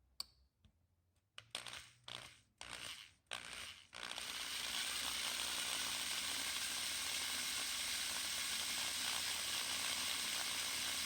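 A sharp click, a few short noisy bursts, then from about four seconds in a steady even whirring hiss: a drill boring out the rivet head that holds a diecast car's base together.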